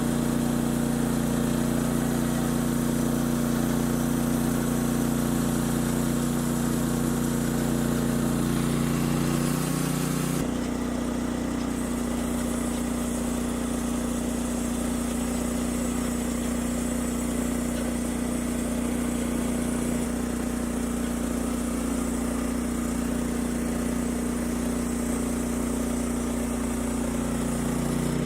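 Portable band sawmill's gasoline engine running steadily, its tone shifting about ten seconds in.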